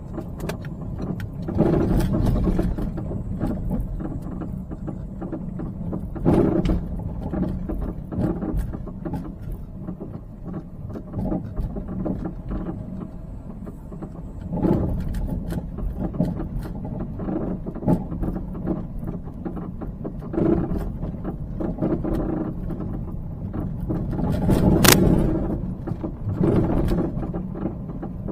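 Cabin sound of a Peugeot 308 driving, with irregular knocking clunks from the front underbody on small road bumps. The mechanic takes the clunk for a suspension fault in a minor part, not the brakes.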